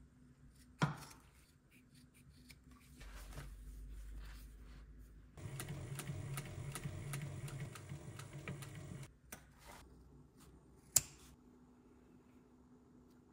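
An industrial sewing machine stitching leather: a low motor hum builds, then the needle runs a steady burst of even stitches, about four a second, for roughly four seconds before stopping. A single snip of shears comes just before, and a sharp click about eleven seconds in.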